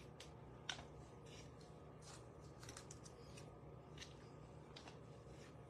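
Faint swishes and light ticks of baseball trading cards being handled and laid down on a playmat, with one sharper tap less than a second in, over a low steady room hum.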